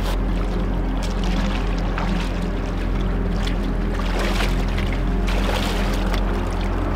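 Sea water splashing and sloshing around a person's legs as he wades in off a rocky shore, in irregular surges, over a steady low hum.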